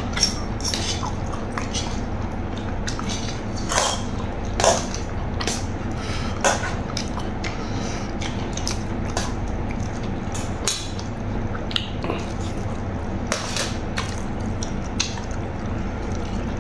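Eating sounds: a metal spoon clicking and scraping against a metal tray of rice, many short irregular clicks over a steady background hum.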